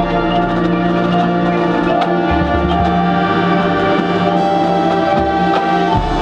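Marching band playing, with brass holding chords over low bass notes and percussion underneath.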